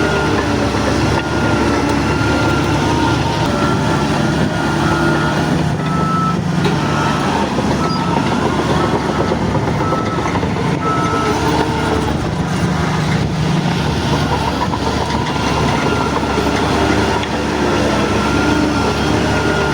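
Heavy diesel engine of a bulldozer running steadily with its reversing alarm beeping in a regular series of short beeps.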